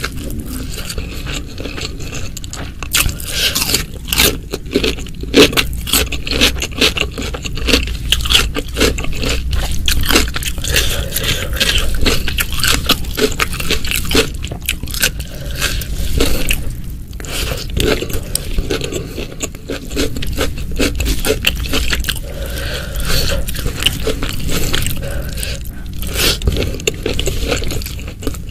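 Close-miked ASMR eating sounds: a person crunching and chewing food in dense, irregular crackles, with scraping.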